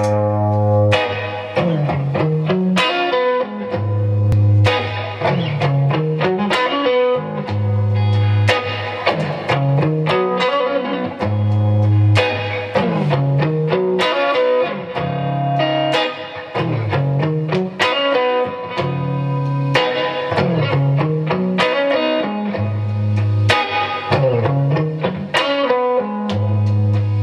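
Gretsch G5622T hollow-body electric guitar played through a Boss Katana MK2 amplifier in a blues jam: a low riff that climbs in pitch and repeats every few seconds, with plucked single-note lines over it.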